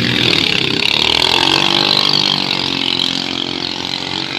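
Engines of racing outrigger bancas running at full throttle as the boats launch and speed away, loudest in the first couple of seconds and fading as they pull off into the distance.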